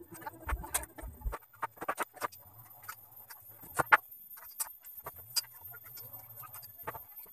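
Irregular light clicks and taps of a steel square and timber boards being handled while the boards are marked out, with a sharper wooden knock about four seconds in.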